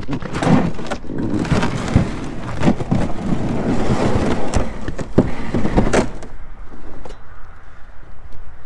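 Canoe hull scraping and knocking against river shelf ice as the paddler climbs out onto the ice, with rough grinding and thumps for about six seconds, then only scattered clicks and light knocks.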